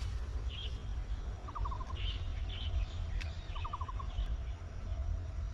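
Birds calling outdoors: a quick run of about five short notes, heard twice, with higher chirps scattered between, over a steady low rumble.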